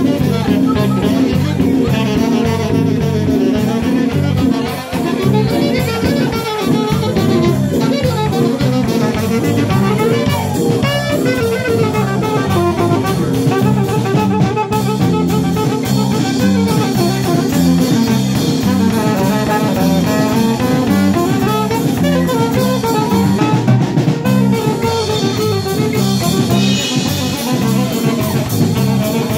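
Live band playing: a saxophone carries the melody over a drum kit and guitar.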